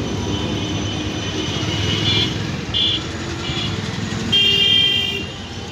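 Street traffic rumbling, with vehicle horns tooting several short times and one longer horn blast, the loudest sound, about four seconds in.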